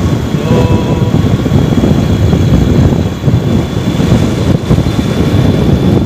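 Motorcycle riding along an open highway: steady engine and road noise with wind rushing and buffeting the microphone.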